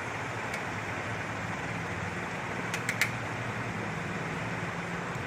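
A cluster of three small, sharp clicks close together about three seconds in as a keypad mobile phone's casing is opened, over a steady background hum and hiss.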